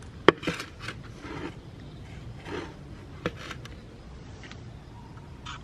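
Handling noises: two sharp knocks about three seconds apart, with short bouts of rustling and scraping between them. No grinder motor is running.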